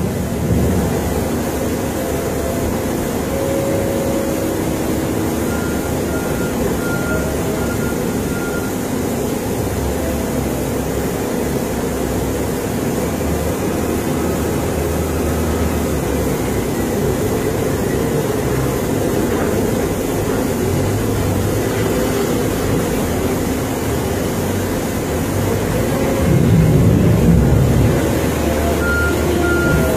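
Komatsu WA100 wheel loader's diesel engine running steadily as it works, growing louder near the end as the machine comes close. Its reversing alarm beeps in a quick series about six seconds in and again at the very end.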